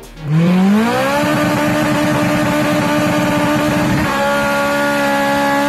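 A 1996–2000 Honda Civic's four-cylinder VTEC engine pulling hard, heard from inside the cabin. The note climbs over the first second, then holds high and steady in the high-rpm VTEC range, with a small change in tone about four seconds in.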